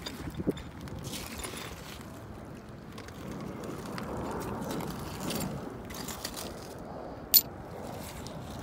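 Footsteps crunching and grinding over coarse shingle mixed with beach glass and pottery shards, with one sharp click about seven seconds in.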